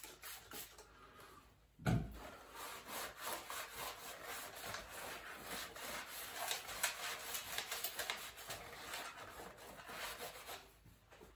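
Quick back-and-forth hand rubbing on a fiberglass headlight housing, taking the roughness off its surface. A single knock comes before the strokes start, and they stop shortly before the end.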